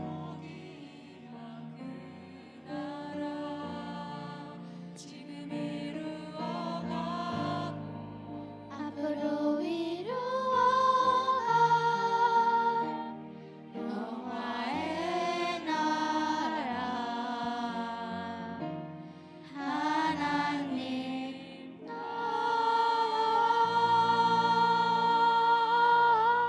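Several voices singing a Korean worship song over instrumental accompaniment, closing the song in long held notes. The loudest is a final sustained note in the last few seconds.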